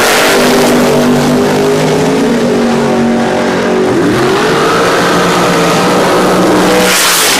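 Dragster's V8 engine at full throttle, launching off the line and running away down the drag strip. Its pitch climbs, holds, then dips and climbs again about four seconds in at the gear change. A loud rush of noise comes near the end.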